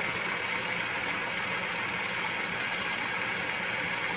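Atlas 618 metal lathe running steadily, a continuous motor and drive whir with no cut or other event.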